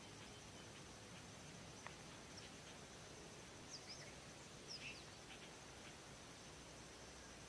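Near silence: faint forest ambience with a thin steady high insect drone and a few short bird chirps about four and five seconds in.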